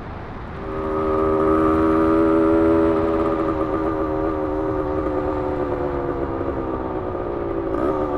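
1972 Yamaha LT2 100's single-cylinder two-stroke engine pulling under throttle: its note comes up about a second in, holds steady, then slowly drops in pitch. Wind rushes over the helmet-mounted microphone underneath.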